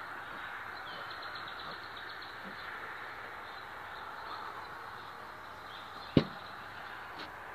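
Steady faint background hiss with a short run of faint high chirps about a second in, and one sharp knock about six seconds in.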